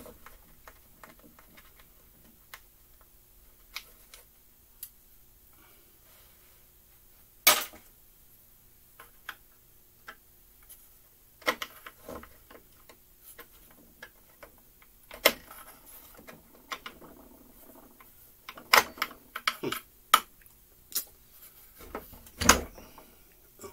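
Irregular clicks and knocks of a screwdriver and small metal parts against the plastic housing of a McCulloch Mini Mac 30 chainsaw being taken apart, with a few sharper knocks among quieter taps.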